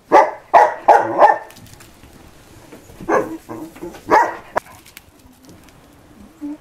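Alano español dog barking: four barks in quick succession at the start, then a few more about three to four seconds in.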